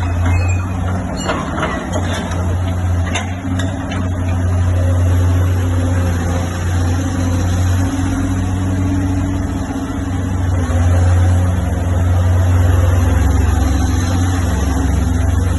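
Heavy diesel engine running steadily at a constant speed, with a deep, even hum.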